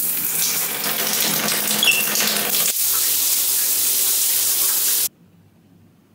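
Water running hard from a bath-shower mixer, with a brief high squeak about two seconds in. The sound changes character partway through as the shower head sprays against the tiles, then cuts off abruptly about five seconds in.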